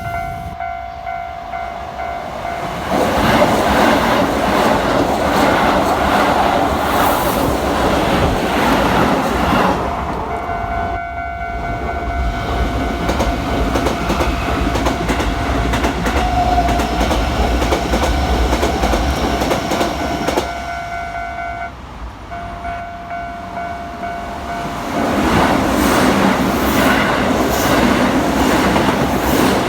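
Level-crossing warning alarm ringing steadily while Keisei electric trains pass over the crossing, their wheels and cars making a loud rumbling clatter. The first train passes about three seconds in and is gone by about ten seconds. The alarm rings on alone, then a second train arrives near the end.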